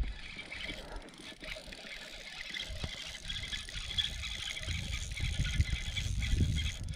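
Spinning reel being cranked steadily to retrieve a lure, its gears giving a fine, fast whirring tick. A low rumble grows louder in the second half.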